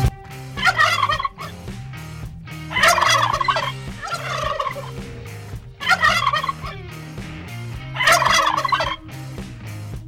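Male turkey gobbling: a series of short, rattling gobbles about every two to three seconds.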